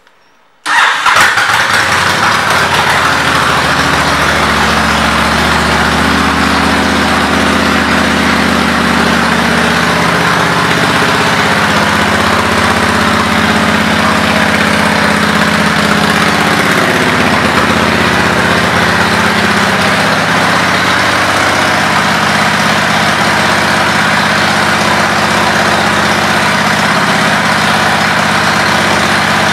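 Honda VTX1300C's V-twin engine with Vance & Hines aftermarket pipes starting under a second in, then idling steadily.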